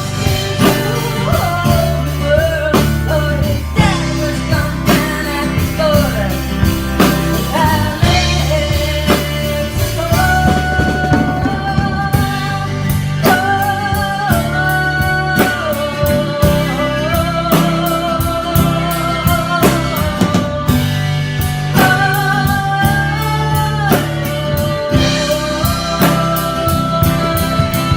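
A live band playing a blues-rock song on drums, bass and guitar, with a held, wavering melody line over a steady bass and drum beat.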